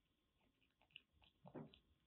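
A kitten crunching dry kibble from a ceramic bowl: faint scattered clicks and crunches, the loudest crunch a little past the middle.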